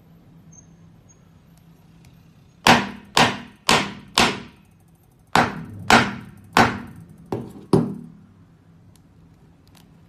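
Nine sharp knocks of hard objects being struck, each ringing briefly. They come in a quick run of four, then after a short pause a run of five, about half a second apart.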